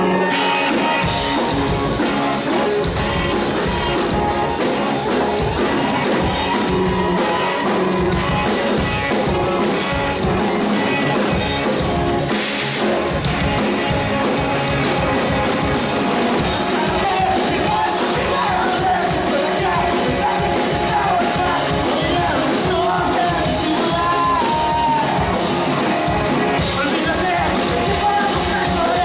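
A rock band playing live, loud and dense, with drums, guitars and a voice.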